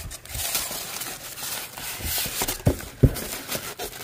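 Styrofoam packing and bubble wrap rustling and scraping as they are handled in a cardboard box, with a few dull knocks, the loudest about three seconds in.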